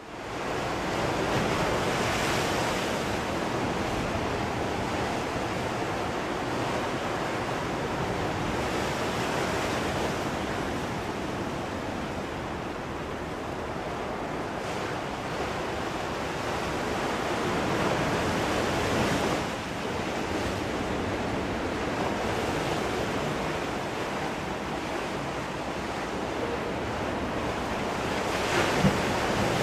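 Sea waves breaking and washing onto the shore: a continuous surf rush that swells and eases as each wave comes in. A single short knock sounds near the end.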